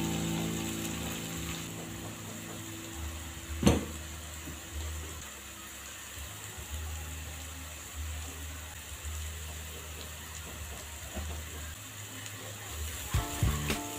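Ground chili paste frying in a wok with a steady low sizzle. A single sharp knock comes about a third of the way in, and near the end the wooden spatula starts scraping and knocking against the pan as the paste is stirred.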